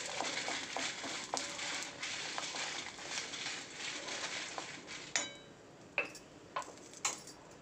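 A metal spatula stirring and scraping dry red chillies and garlic cloves around a kadai as they fry in a little oil, with a light sizzle. The stirring stops about five seconds in, leaving only a few taps and a short metallic clink.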